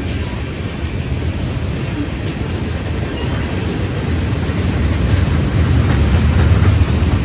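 Freight train rolling past, a steady low rumble that gets a little louder over the last two seconds or so.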